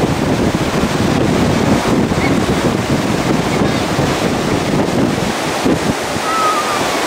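Wind buffeting the microphone over the steady rush of ocean surf on a beach.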